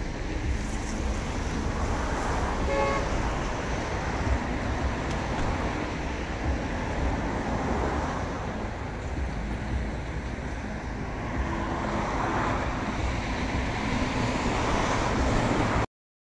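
Steady outdoor background noise with a low rumble. A short pitched toot sounds about three seconds in. The sound cuts off abruptly just before the end.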